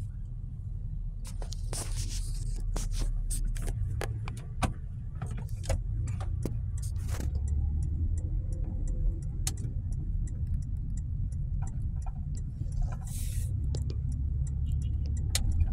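Car cabin noise while driving: a steady low rumble of engine and tyres, with scattered sharp clicks and knocks and a couple of brief hisses.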